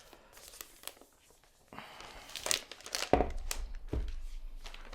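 Paper pull-tab strip being torn off an Apple product box and crinkled in the hand: a few small clicks, then about two seconds in a dense tearing, crinkling rustle, with a couple of dull knocks from the box being handled.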